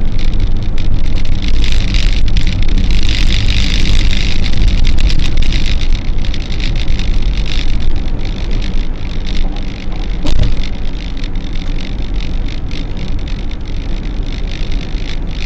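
Road noise inside a vehicle cruising at highway speed: a steady low rumble of tyres and engine under a hiss of wind, with a single sharp knock about ten seconds in.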